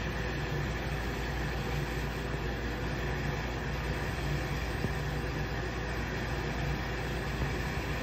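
Hobart LXER undercounter commercial dishwasher running: a steady low motor hum under an even rushing noise.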